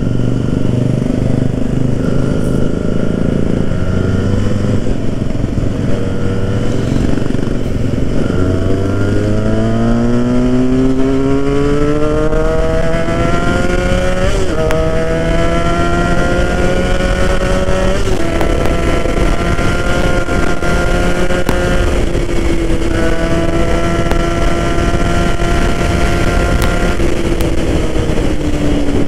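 Benelli 302R's parallel-twin engine heard from the rider's seat, with wind noise. It runs steady at first, then the revs climb through the gears with two brief breaks for upshifts, hold steady at cruise, and fall away near the end as the throttle closes.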